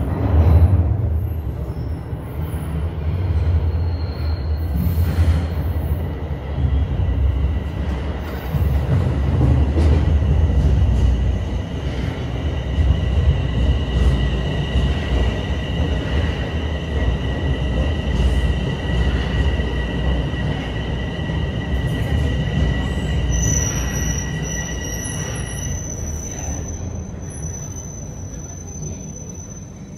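Bombardier Toronto Rocket subway train pulling into the station and slowing: a heavy rumble with two steady high-pitched tones through the middle. Near the end a thinner, higher squeal takes over as the rumble dies away and the train comes to a stop.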